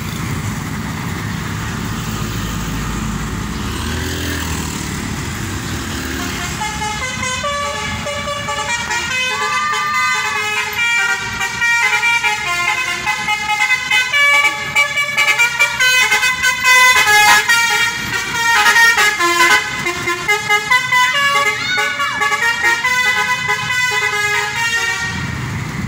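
Street traffic rumble, then from about seven seconds in a loud melody of quick stepped tones played by an open-sided tourist bus as it comes close, over the traffic.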